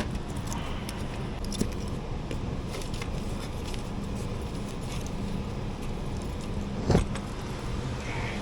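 Light metallic clinks and rattles of tools and metal parts being handled, with one sharp knock about seven seconds in, over a steady low hum.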